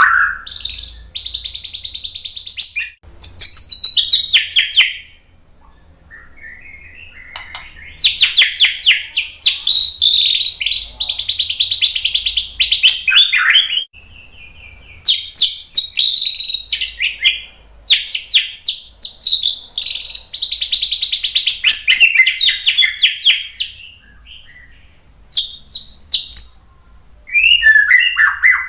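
Male white-rumped shama (murai batu) singing: loud bouts of fast runs of repeated notes mixed with whistled phrases, broken by short pauses, the longest of a couple of seconds about a fifth of the way in.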